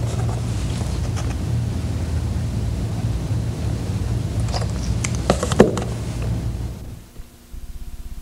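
Steady low electrical hum on the old videotape soundtrack, with small clicks of a drink can being handled near the start and a cluster of clicks as it is drunk from, the sharpest about five and a half seconds in. The hum drops out about seven seconds in, giving way to a faint even pulsing buzz.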